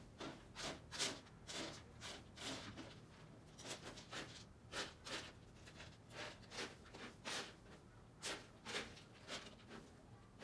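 A cat digging and raking in a litter box filled with large hinoki-wood pellet litter: a run of irregular scratching scrapes, about one or two a second.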